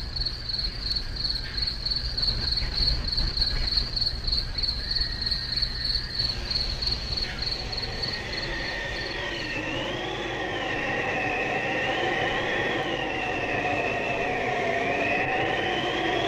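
Sound effects: crickets chirping rapidly over a low rumble. About halfway through the chirping fades and a train's wavering, sliding squeal takes over, growing louder toward the end.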